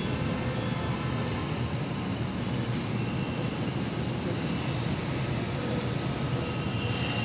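Steady low engine rumble with no distinct knocks or bangs, and a faint thin steady whine above it.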